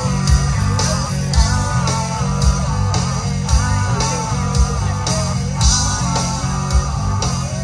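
Rock music with guitar, a steady drum beat and singing.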